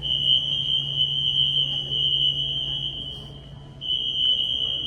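Continuous high-pitched electronic alarm tone with a low hum beneath it, dipping briefly about three seconds in before sounding again.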